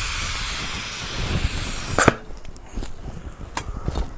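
Air hissing steadily out of a car tyre through its open valve stem with the valve core removed, deflating it. The hiss cuts off sharply with a knock about two seconds in, and a few light knocks follow.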